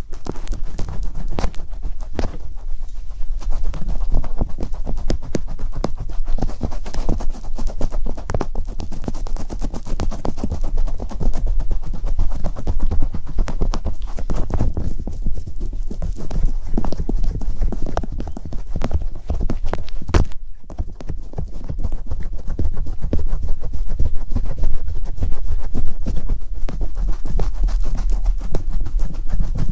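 Dense, rapid tapping and scratching close to the microphone, clicks following one another many times a second over a low rumble: ASMR trigger sounds made without whispering.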